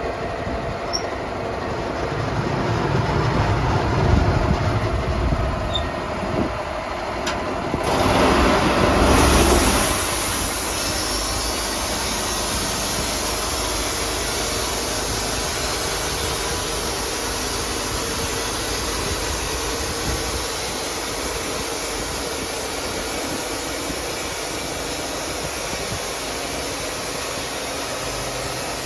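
Sawmill machinery running under an engine, with heavier rumbling swells about four and eight seconds in, then settling into a steady run.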